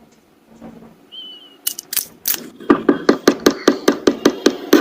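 A fast, even series of sharp taps or knocks, about six a second, starting a little over halfway in, after a short high whistle-like tone.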